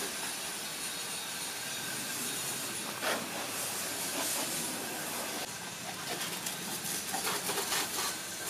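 Steady hiss of a water jet from a hose spraying onto and around a motorcycle, with faint spattering ticks now and then.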